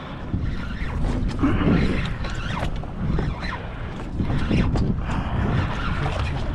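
Heavy spinning reel being cranked against a hooked bluefin tuna, with irregular mechanical clicking and creaking over a low rumble.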